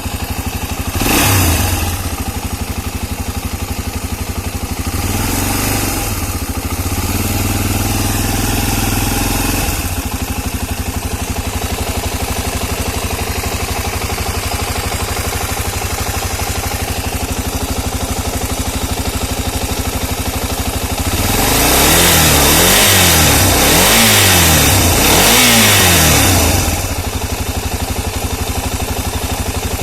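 Engine idling with a rapid, regular knock, blipped once about a second in, held at higher revs for a few seconds, then revved up and down several times before settling back to idle. The knock is the fault being shown: an engine knocking.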